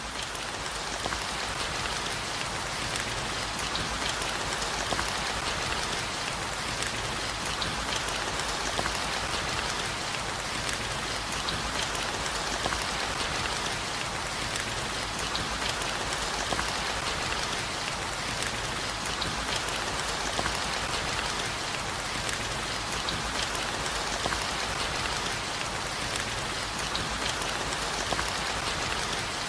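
Steady rain: a dense, even hiss of falling drops with many small individual drop impacts, swelling up over the first second and then holding steady.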